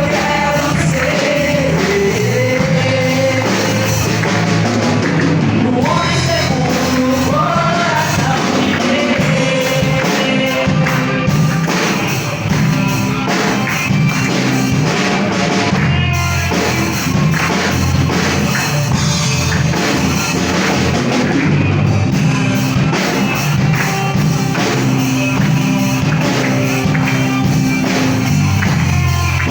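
Church praise band playing a worship song, with a voice singing over drum kit and other instruments.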